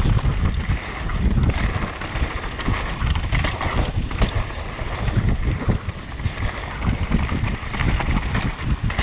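Wind buffeting the microphone over a mountain bike riding fast down a dirt and rock trail: tyres rolling over loose ground and the bike rattling, with frequent small knocks.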